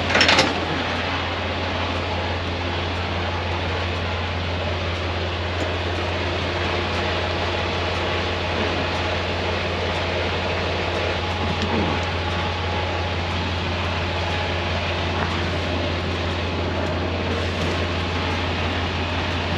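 Freightliner semi truck's diesel engine idling, a steady low hum close by behind the cab, with a constant hiss over it.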